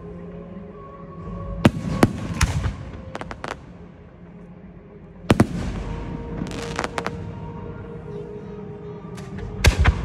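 Fireworks display: aerial shells bursting with sharp bangs every few seconds, the loudest about five seconds in, with brief crackling after some of the bursts.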